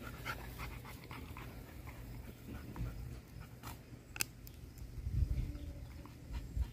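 A dog gnawing on a stick: scattered small cracks and clicks of wood in its teeth, the sharpest a couple of snaps a little past the middle, with a dog panting.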